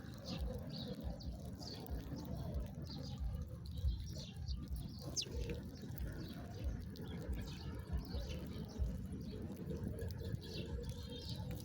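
Small songbirds chirping: many short, high chirps and a few quick sweeping notes, over a low rumble.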